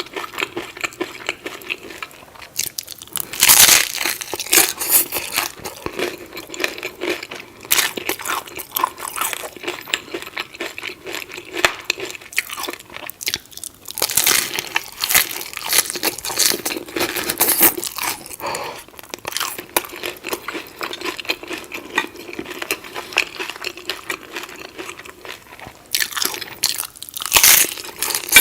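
A person biting into and chewing crunchy food, with loud crunchy bites a few seconds in, in the middle and near the end, and quieter chewing between.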